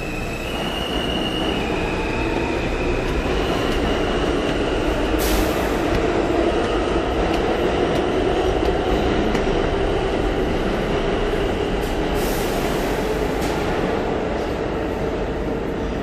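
New York City subway train pulling out of the station: a steady, loud rumble of wheels on rail with a high motor whine that steps up in pitch as the train gathers speed.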